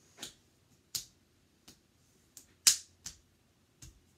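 A child snapping his fingers, about six sharp snaps at uneven intervals, the loudest a little past halfway.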